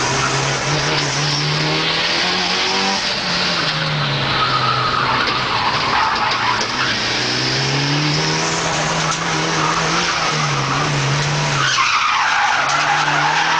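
Race car engine heard from inside the cabin, its revs climbing and dropping repeatedly with gear changes and corners, over loud road noise. Tyres squeal through the corners, most clearly around the middle and near the end.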